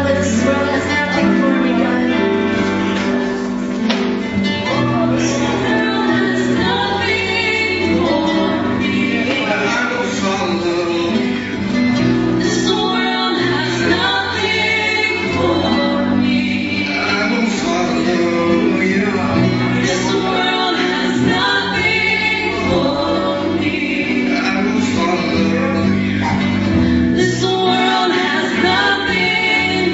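Gospel worship music: a band playing sustained chords with voices singing over it.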